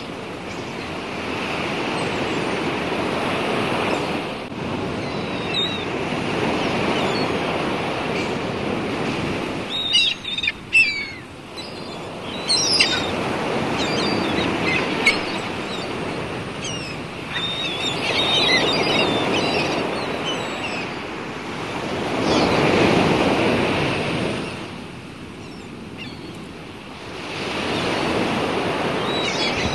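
Sea water rushing and breaking along a sailing ship's hull as it drives through the waves, swelling and falling away every few seconds. A few short, high bird calls come through in the middle.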